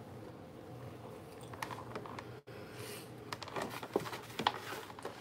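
Soft clicks and rustling of hands handling things close to the microphone, busier in the second half, over a low steady room hum, with a brief dropout a little before halfway.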